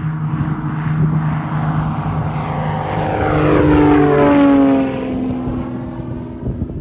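Commander 114B's six-cylinder Lycoming engine and propeller at full takeoff power as the plane lifts off and climbs out. It grows louder as it passes close overhead about four seconds in, drops in pitch as it goes by, then fades.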